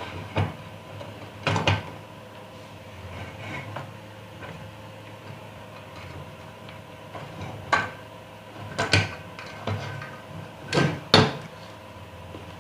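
Objects being handled on a workbench, with a handful of separate knocks and clatters. The loudest come in pairs near the end.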